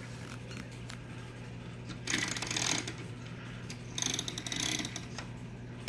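Vintage Schmeckenbecher cuckoo clock's movement whirring and ratcheting in two short bursts, about two and four seconds in, after a few faint clicks. It sounds this way because the weight is not hung on it.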